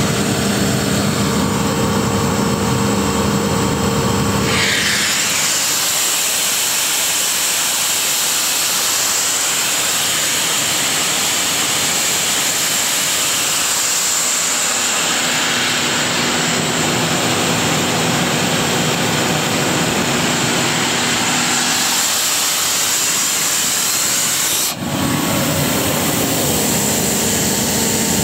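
Caterpillar 3306 inline-six diesel of a Sullair portable air compressor running steadily. About five seconds in, a broad rushing hiss swamps the engine's steady hum, and the hum comes back clearly near the end after a brief dip.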